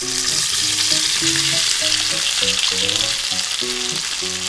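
Flour-coated chicken deep-frying in hot oil in a miniature steel wok: a loud, steady sizzle that starts as the piece goes into the oil. Light music plays underneath.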